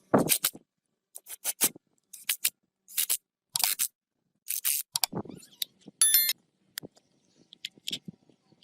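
Hand tool working in a series of short scraping strokes, about one every half second to a second, with a brief squeak about six seconds in.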